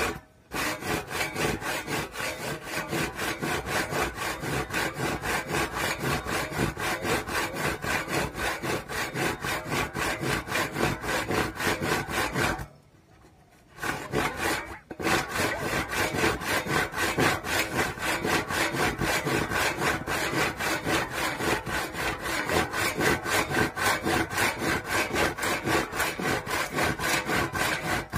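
Steel handsaw cutting across a wooden plank in quick, even back-and-forth strokes. The sawing stops for about a second near the middle, then carries on at the same pace.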